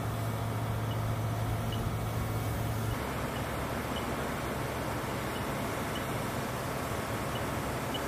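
Steady rushing noise of fire hose streams spraying onto a burning aircraft fire trainer, with a strong low hum under it that cuts off about three seconds in.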